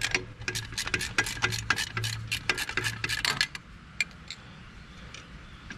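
Ratcheting wrench clicking quickly and evenly as it spins out the alternator's lower mounting bolt, about four to five clicks a second, stopping about three and a half seconds in, followed by a few faint, scattered clicks.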